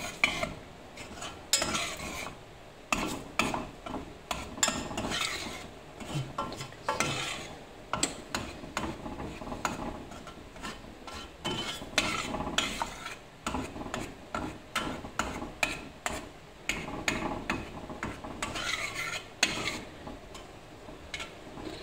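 A metal spoon stirring and scraping around the inside of a stainless steel pot, with irregular clinks against the bottom and sides, working the lumps of instant coffee into the liquid.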